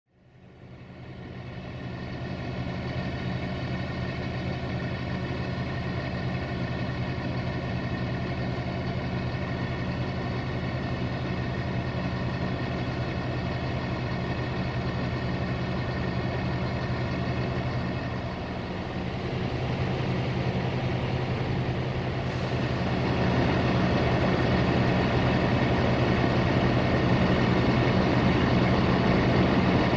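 Diesel engine of a CFR LDE2100 (060-DA) diesel-electric locomotive, a Sulzer unit, running at idle with a steady low drone. It fades in at the start, and about two-thirds of the way through it gets louder and rougher as it revs up.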